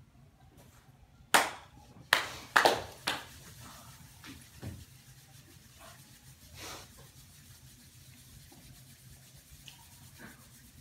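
About five sharp hand slaps in quick, uneven succession, palms patting on the body, then a soft breathy puff of an exhale a few seconds later.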